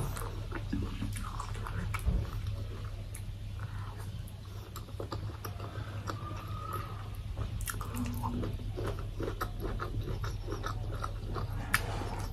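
Close-miked chewing and biting of someone eating boiled egg with chopsticks, with small wet mouth clicks and a few sharper ticks, over a steady low hum.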